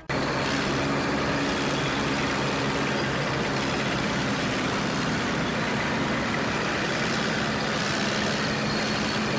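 Engine-running sound effect of a truck, starting suddenly and holding steady with a low hum under a noisy rumble, as played by a toy truck's electronic sound module.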